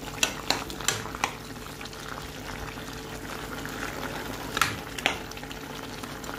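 Pot of brown stew chicken simmering on the stove: a steady hiss of bubbling liquid, with several sharp clicks, three in the first second or so and two more about four and a half to five seconds in.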